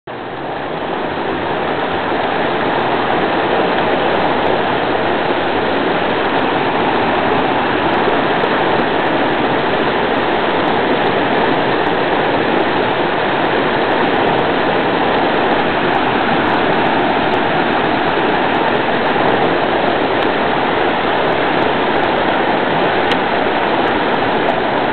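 River water rushing, a steady, unbroken flow.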